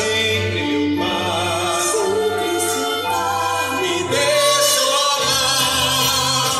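Song from a stage musical: a voice holding long notes with vibrato, moving to a new note about once a second, over instrumental accompaniment.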